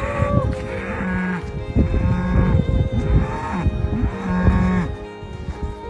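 Repeated moos, five drawn-out calls about a second apart, the kind of mooing that calls cattle up to the barn.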